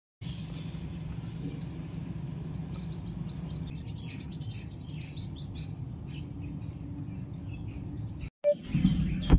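Small birds chirping outdoors in quick series of short high notes, dense at first and thinning out after about six seconds, over a steady low background rumble. Near the end the sound drops out briefly, then a louder low rumble follows.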